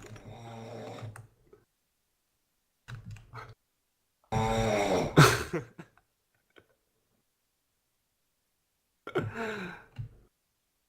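A person snoring, heard over an online voice chat: four snores a few seconds apart, the one about halfway through the loudest, with the sound cut to dead silence between them.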